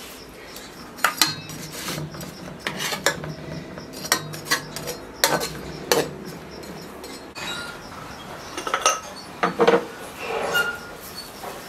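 A metal utensil clinking and scraping against a metal cooking pot and bowl as fried dough sheets are lifted and laid in: a run of sharp clinks in the first six seconds, then scattered lighter clinks and taps.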